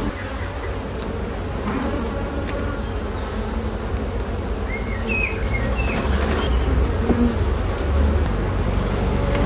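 Honeybees buzzing around an open hive: a steady hum of many bees.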